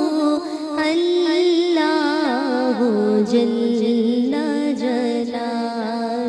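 A woman singing an Islamic devotional song unaccompanied into a microphone, in a wavering, ornamented style that settles onto a lower held note about halfway through.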